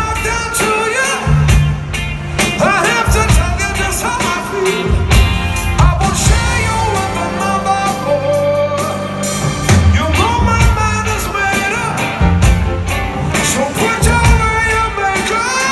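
Live rock band playing with a male lead singer over bass guitar and drums, heard from the crowd in a large arena.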